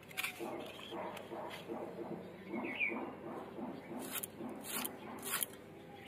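A red onion being sliced against the fixed blade of a boti: a few short, crisp cuts in the second half, after a brief splash of hands in a bowl of water at the start. Faint bird-like chirps are in the background in the first half.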